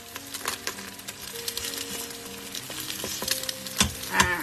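Eggs and ginger sizzling in sesame oil in the inner pot of an electric pressure cooker, with a spatula scraping and knocking against the pot. There is one sharp knock near the end.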